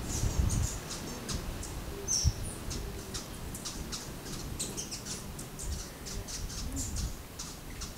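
Birds giving many short, high chip notes, several a second, with one brief clear whistle about two seconds in, over a low rumble.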